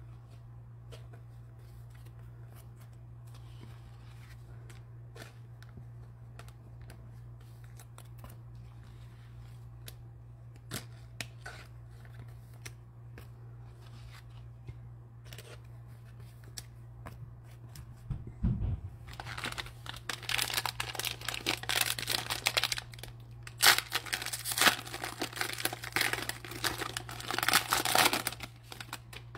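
Plastic cello-pack wrapper of basketball cards being torn open and crinkled by hand, loud and crackly, starting about two-thirds of the way in after a low thump. Before that there is only a steady low hum with faint clicks.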